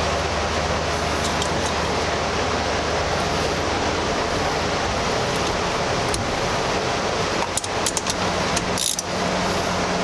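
A steady rushing background noise with a low hum. About seven and a half to nine seconds in come a short run of sharp clicks and a knock, from a ratchet wrench and pliers working a battery terminal nut.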